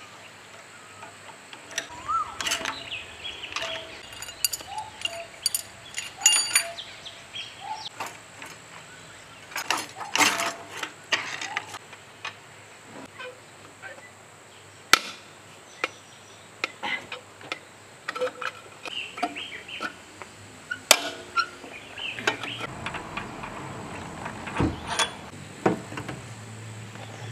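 Scattered metallic clinks, knocks and scrapes of hand tools on a rusty multi-cylinder diesel generator engine as it is taken apart, from a wrench on the valve rocker-arm assembly to a long pipe used as a lever.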